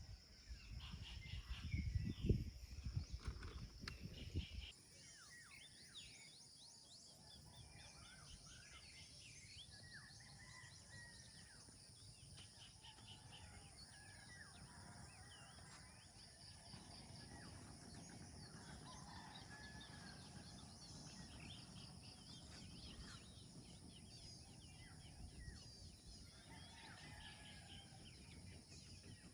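Rural outdoor ambience: many birds chirping and calling over a steady high insect drone. For the first few seconds a louder low rumble with a few knocks covers it, then cuts off abruptly.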